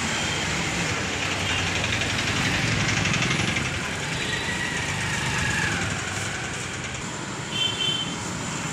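Hot oil sizzling in a large iron kadai as lumps of cauliflower batter are dropped in to deep-fry, over a steady low rumble. A brief high tone sounds near the end.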